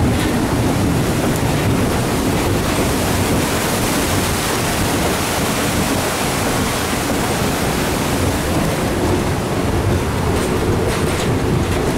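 Steady rushing noise of an excursion train ride in an open car behind a Shay geared steam locomotive, mixed with the rapids of a creek running alongside the track. The locomotive's steam whistle begins to sound near the end.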